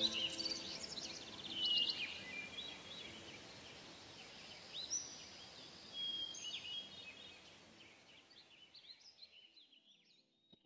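Birdsong chirps and trills over a faint hiss, part of a background music track, fading away to near silence near the end. The track's held music notes stop right at the start.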